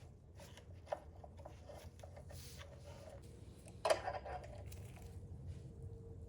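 Quiet handling of tools and bolts while the oil filter cover bolts are fitted: a light click about a second in and a louder sharp metal knock near four seconds, with a few small ticks between.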